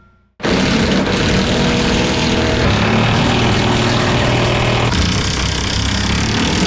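An engine running steadily under a loud hiss, starting abruptly about half a second in.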